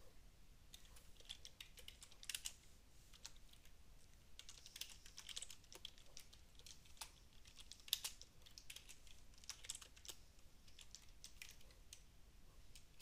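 Faint typing on a computer keyboard: irregular, separate key presses.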